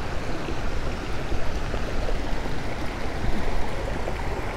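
Water rushing and splashing over small ledges and stone blocks in a shallow granite channel, a steady stream-like wash. A fluctuating low rumble of wind on the microphone runs under it.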